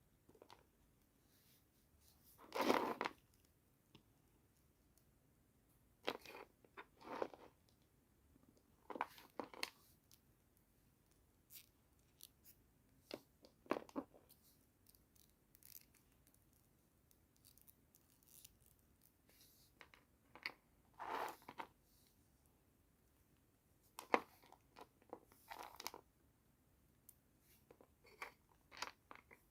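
Toy packaging handled and opened in irregular short bursts: rustling, tearing and sharp clicks with quiet gaps between, the loudest burst about three seconds in.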